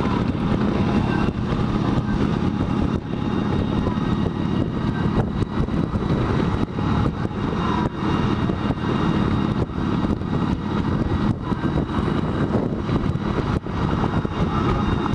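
Motorcycle riding at a steady pace: a continuous engine rumble mixed with wind noise.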